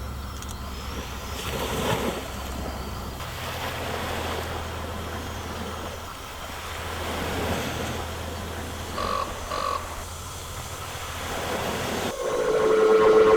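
Low steady rumble with washes of noise swelling and fading, two short beeps about nine seconds in, and music starting just before the end.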